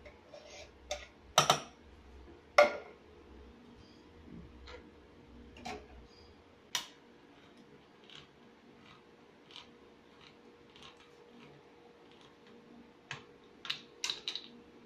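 A utensil knocks sharply against a metal cooking pot twice, about one and a half and two and a half seconds in. Then a hand-crank can opener is worked round a tin can, making soft clicks about once a second, with a quick run of louder clicks and taps near the end. A faint steady hum runs underneath.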